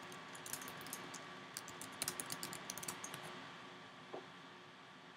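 Typing on a computer keyboard: a quick, faint run of key clicks for about three seconds, then one softer click about a second later.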